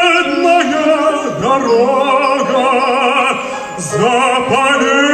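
Operatic singing of a song: long held notes with wide vibrato, more than one voice overlapping in the middle, with a short dip between phrases about four seconds in.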